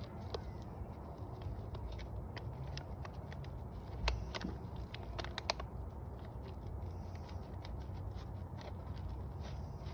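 Thin plastic nursery pot crackling and clicking as it is squeezed and flexed by hand to loosen a seedling's root ball out of it, with a few sharper cracks about four and five and a half seconds in. A steady low rumble runs underneath.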